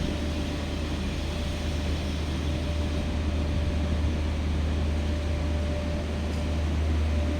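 Steady low rumble and hum of a train, with a faint steady whine above it.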